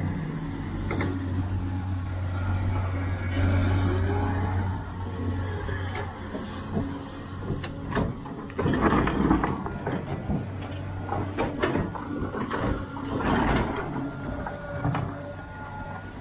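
Sumitomo SH490 hydraulic excavator running with a steady diesel engine drone. From about eight seconds in, its bucket teeth scrape and dig into earth and gravel in several rough bursts.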